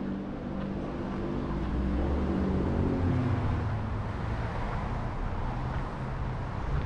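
A motor vehicle driving past. Its engine hum is loudest and drops in pitch about three seconds in as it goes by, then gives way to steady traffic and tyre noise.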